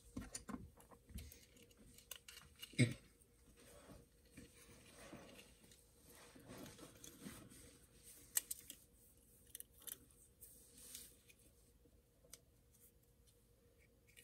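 Faint, scattered clicks and taps of small metal knife parts and a screwdriver being handled while a folding knife is put back together, with one sharper click about three seconds in.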